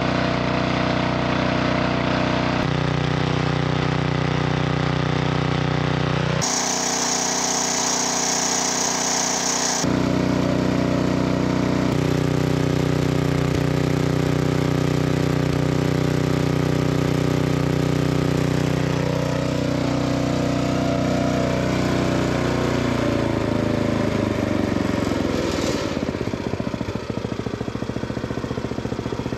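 Small four-stroke engine, running on a substitute oil instead of engine oil, runs steadily through several cut-together stretches. Near the end its pitch falls away as it slows to a stop.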